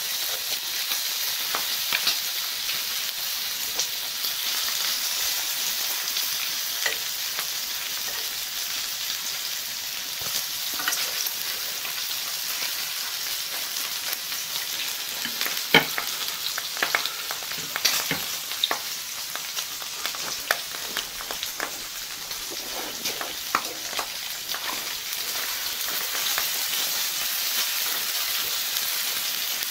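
Slices of pork belly sizzling steadily on a hot griddle as they fry. Sharp clicks of metal tongs come now and then as the pieces are turned, the loudest about halfway through.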